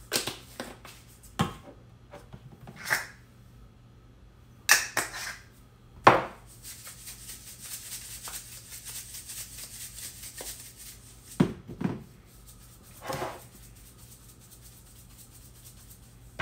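Spice shaker jars being shaken, the seasoning rattling steadily for a few seconds in the middle, with sharp clicks and taps as jars and lids are handled and set down on the counter.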